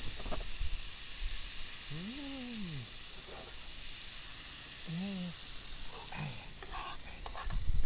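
Food sizzling in a frying pan, a steady hiss, with two short low vocal sounds about two and five seconds in and a few light knocks near the end.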